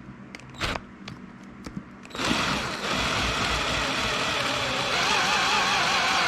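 A few light clicks, then about two seconds in an electric drill starts and runs steadily, driving a hole saw cutting into a mounting plate, its pitch wavering slightly as the saw bites.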